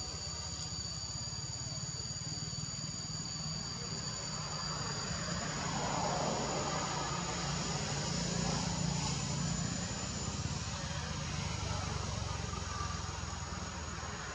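Steady, shrill insect drone at two high pitches, the lower one dropping out about five seconds in, over a low rumble that swells a little in the middle.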